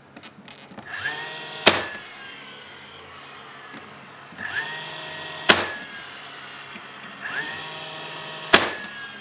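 DeWalt cordless pin nailer firing three 5/8-inch pin nails into wood, about three seconds apart. Each shot is a short whine from the tool's motor followed by a sharp snap as the nail drives home.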